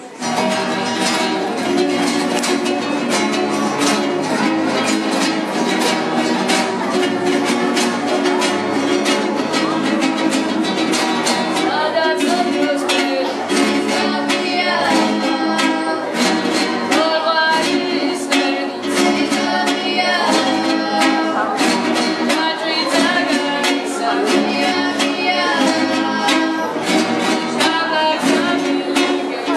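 Ensemble of acoustic guitars strumming chords together in a brisk rhythm, coming in suddenly just after the start.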